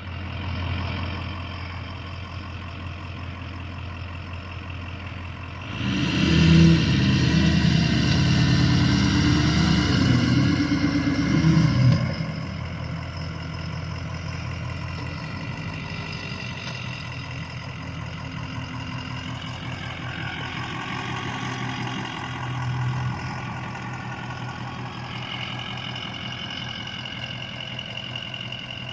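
Ford F-250's Power Stroke V8 turbodiesel engine working the truck over rough ground. It runs steadily, gets louder and works harder with shifting revs from about six seconds in until about twelve seconds, then settles back to a lower steady run.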